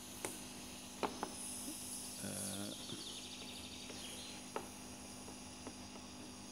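Faint bench-work sounds of desoldering a power capacitor with a soldering iron: a few light clicks and taps as the iron and the capacitor's pins work against the copper pad, over a steady low hiss. A brief low hum comes a little past two seconds in.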